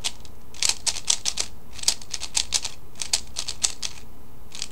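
Rubik's cube being turned by hand: sharp plastic clicks of its layers in quick runs of a few turns, with short pauses between runs.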